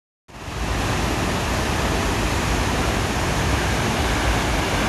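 Waterfall rushing: a steady, dense noise of falling water that fades in just after the start.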